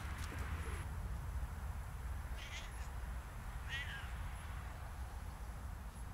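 Siamese cat giving two short meows, about two and a half seconds in and again just over a second later, over a steady low rumble.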